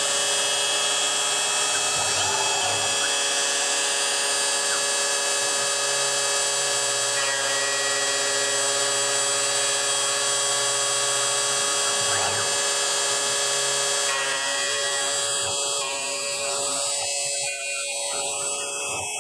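CNC router spindle running steadily at high speed with an end mill while making a light facing pass, skimming a few thousandths off the top face of a small part. About fifteen seconds in the sound changes and drops a little.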